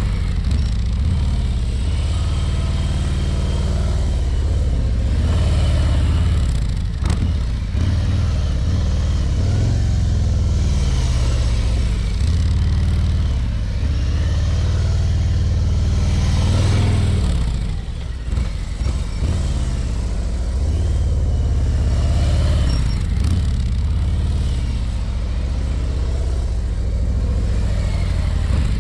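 Harley-Davidson Ultra Limited's V-twin engine running at low speed, a steady low rumble with small rises and falls of throttle as the heavy touring bike is ridden slowly past. The sound eases briefly about two-thirds of the way through.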